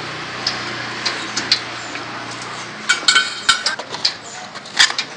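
Clatter of utensils and cookware at a street-food stall: sharp clinks and knocks over a steady hiss, thickest after about three seconds.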